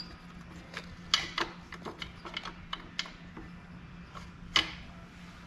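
Metal seat-suspension parts clicking and clinking as they are worked by hand into place, in irregular sharp knocks, the loudest about a second in and near four and a half seconds, over a steady low hum.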